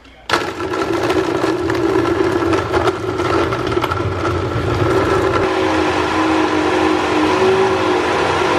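Redmond personal blender switching on about a third of a second in and running with a steady whine as it blends frozen mango and vegetables into a smoothie. Hard frozen chunks clatter against the cup during the first few seconds.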